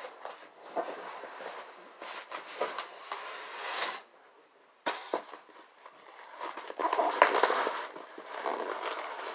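Polystyrene foam packing blocks and a cardboard TV box being handled: irregular crackling, squeaking and scraping, with a few sharp knocks as the pieces are pulled out and set down.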